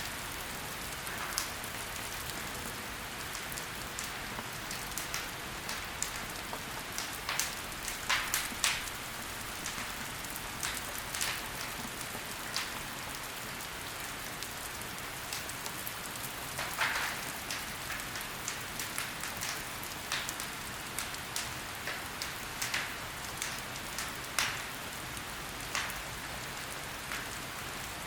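Logs burning in a fireplace: a steady soft hiss with irregular crackles and pops, and a few louder snaps scattered through.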